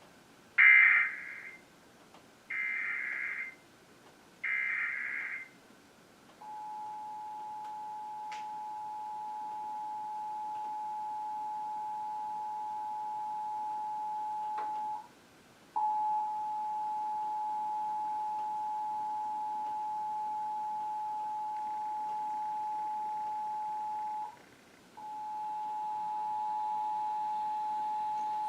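Emergency Alert System SAME header: three bursts of high-pitched digital data screech, each about a second long and a second apart. The EAS two-tone attention signal (853 and 960 Hz) then sounds as a steady dual tone that cuts off and restarts twice, announcing a Required Monthly Test.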